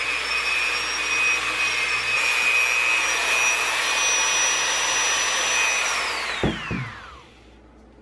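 Handheld high-speed rotary tool with a cut-off wheel running with a steady high whine and hiss as it cuts a small part. About six seconds in it is switched off and its whine glides down in pitch as it spins down, with a short clunk as it is set down.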